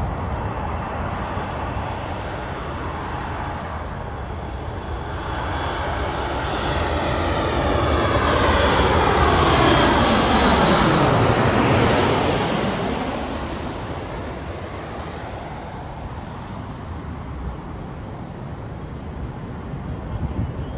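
Boeing 737 MAX 8 with CFM LEAP-1B turbofans passing low overhead. The jet noise builds to its loudest about halfway through, with a whooshing sweep that falls in pitch as the plane goes over, then fades away.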